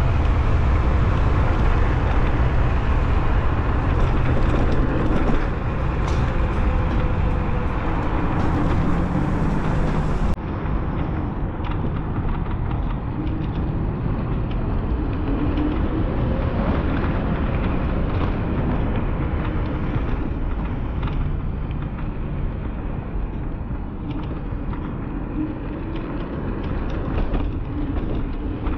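Wind buffeting the action camera's microphone, with tyre and road rumble from riding a paved path: a steady, loud, low rushing noise. A faint whine slides down in pitch over the first few seconds.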